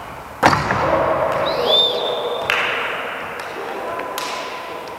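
Two sharp hits of play in a hall, one about half a second in with an echo after it and a second one about four seconds in. Between them, around the middle, comes a short squeak from a shoe on the court floor, over a steady murmur of voices.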